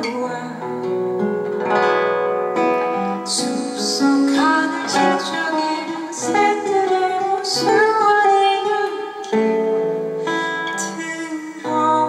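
Live indie band song: a woman singing, held notes bending in pitch, over guitar accompaniment.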